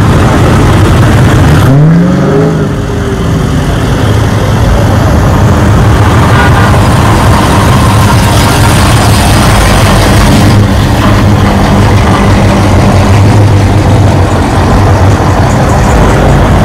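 Loud car engine noise, with an engine revving up about two seconds in.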